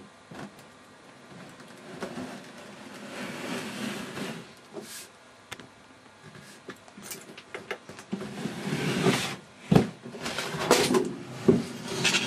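Metal chassis of a flight data recorder sliding out of its orange metal outer case: a scraping slide a couple of seconds in, then a run of sharp clunks and knocks near the end as the heavy unit is handled on the wooden bench.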